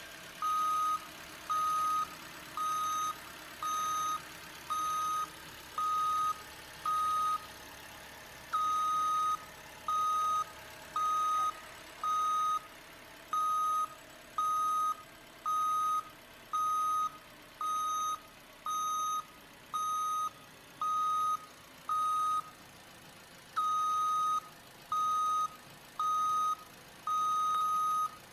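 Electronic reversing-alarm beeping from an RC toy truck, one steady pitch repeating about once a second, each beep about half a second long, with a couple of short pauses.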